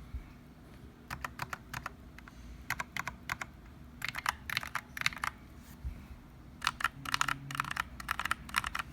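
Typing on an Archon AK89 mechanical keyboard with stock box brown (tactile) switches: runs of quick key clacks, about a second each, separated by short pauses.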